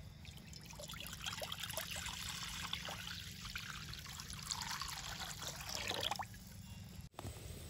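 Water poured from a small steel pot into a wide metal kadhai (wok), splashing and trickling steadily, then stopping about six seconds in.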